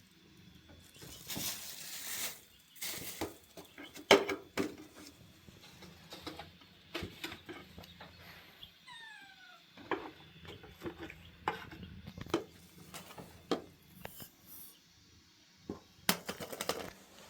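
Kitchen clatter: scattered knocks and clinks of dishes and utensils, with a few short hissing washes early on and a brief squeak about nine seconds in.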